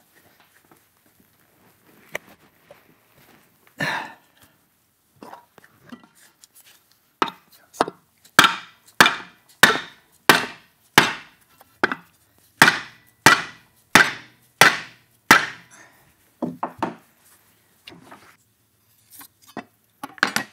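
A metal strip being hammered over a round bar held in a bench vise to bend it: a steady run of about fourteen sharp strikes, roughly one and a half a second, in the middle, with a few scattered knocks before and after.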